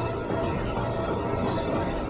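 Background film-score music with sustained tones over a low drone.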